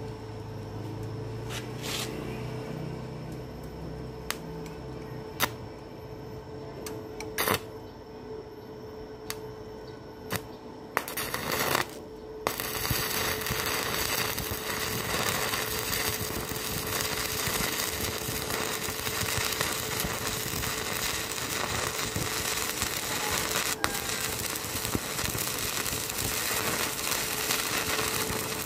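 Stick (arc) welding on steel plate: first a few sharp clicks and short crackles as the rod is struck against the metal, then about twelve seconds in the arc catches and keeps up a steady, dense crackle as the weld bead is run. A steady thin tone runs underneath.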